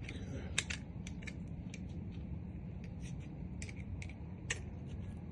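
Irregular light clicks and ticks from small hard objects being handled, a few sharper than the rest, over a low steady rumble.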